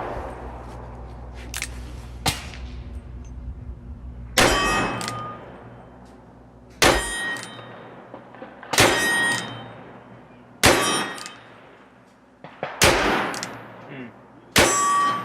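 Six shots from a Smith & Wesson Air Lite .357 revolver firing .38 reloads, about two seconds apart, each followed by the bright ring of a steel target being hit.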